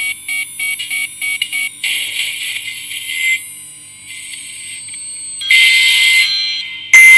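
Electronic emergency-alert alarm tones: a series of quick, evenly spaced beeps, then steady high-pitched tones that change several times and jump suddenly much louder near the end.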